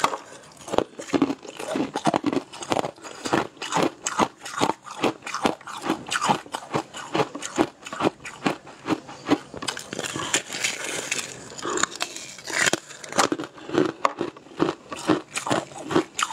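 Close-miked crunching and chewing of a brittle purple treat, with crackling as pieces are broken off it by hand: many crisp, irregular crunches a second.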